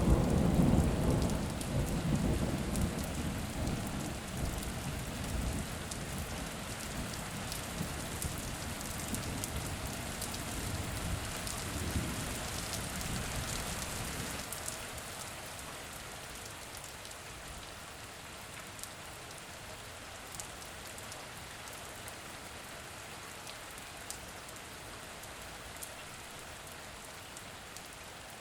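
Steady rain falling, with a peal of thunder that starts right at the beginning and rumbles away over about fifteen seconds. After that only the rain's hiss remains, with a few sharper drop ticks.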